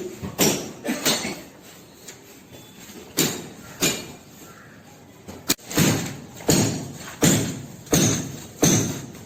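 A rhythmic series of sharp strikes, about one and a half a second, each dying away quickly, with a quieter stretch in the middle.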